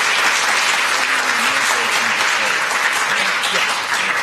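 Audience applauding in a lecture hall, dying down near the end.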